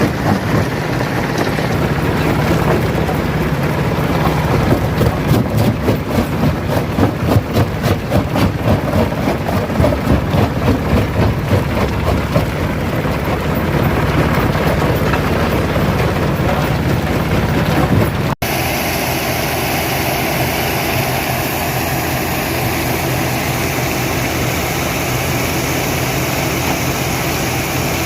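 Rock crusher running and crushing stone: a loud mechanical din that pulses in a fast, even rhythm. About two-thirds through, the sound cuts out for an instant and gives way to a steadier machine noise.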